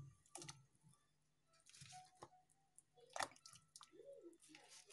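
Faint, scattered splashes and wet squelches as raw chicken drumsticks are placed by hand into a pot of water, the clearest about three seconds in.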